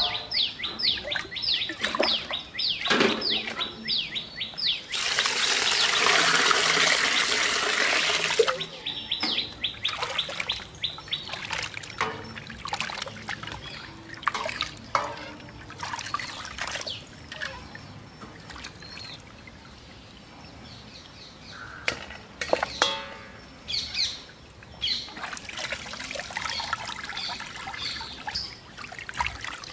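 Water poured into a steel pot in a steady rush for a few seconds, about five seconds in, then raw chicken pieces being washed by hand in the water, with splashing and clinks against the metal. Through the first half a bird gives quick runs of short, falling chirps, about four a second.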